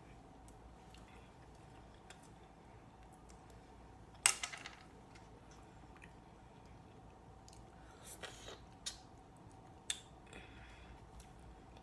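Close-miked eating sounds from a seafood boil: wet chewing and the handling of shrimp and mussel shells, with scattered clicks. A sharp loud crack or clatter about four seconds in and a few more near the end, over a faint steady hum.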